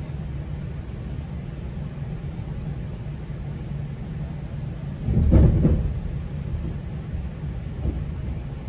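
GO Transit commuter train running along the track, a steady low rumble, with a brief louder clatter about five seconds in and a smaller knock near the end.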